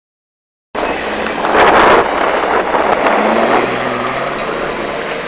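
A 4x4 SUV's engine running under load as it drives through a shallow river, with water splashing and spraying against the body. The splashing is loudest about a second and a half in, and the engine note rises a little toward the middle.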